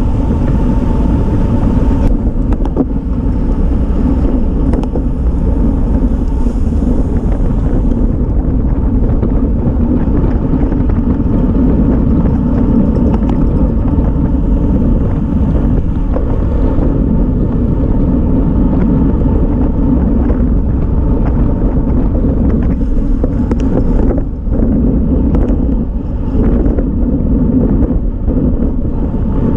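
Wind rushing over a bicycle-mounted action camera's microphone at racing speed, a steady low rumble that dips briefly once.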